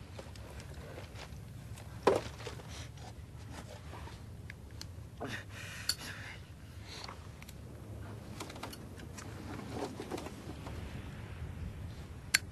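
Handling of a cigarette pack and clothing: soft rustling broken by a few sharp clicks, about 2 and 6 seconds in, and one more near the end as the cigarette is lit, over a low steady rumble.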